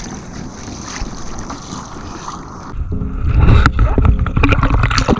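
Steady wind and water noise around a kayak drifting on calm sea. About three seconds in, loud low rumbling with several sharp knocks takes over as the kayak camera is moved and bumped.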